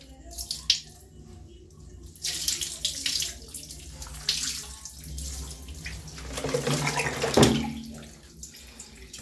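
Running water splashing as a dog is bathed, starting about two seconds in after a few light clicks, with a louder thump a little before the end.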